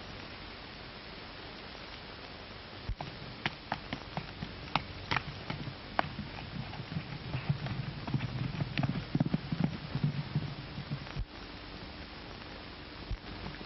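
Horse hoofbeats at a gallop: scattered sharp knocks that thicken into a rapid clatter with a low rumble, then fade out about eleven seconds in, over the steady hiss of an old film soundtrack.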